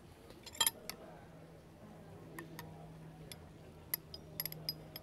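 Utensil clinking against a stainless steel mixing bowl as crab meat is stirred with mayonnaise and seasonings. A scatter of short, bright clinks comes in a pair about half a second in, then singly and in a quick cluster in the second half, over a faint steady hum.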